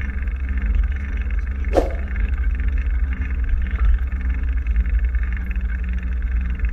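Steady low rumble of wind buffeting the microphone, with a single sharp click about two seconds in.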